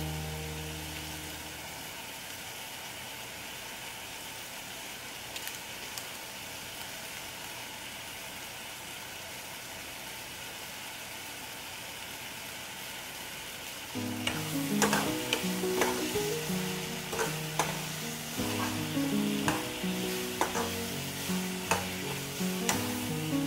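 Water spinach, potato and onion sizzling steadily in hot oil in a metal pan, at the stage where curry powder goes in. About fourteen seconds in, background music comes in over the frying, and a metal ladle stirs the vegetables in the pan.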